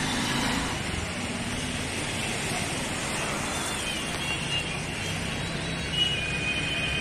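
Street traffic noise: a steady rumble of engines and passing vehicles, with a few faint high tones in the second half.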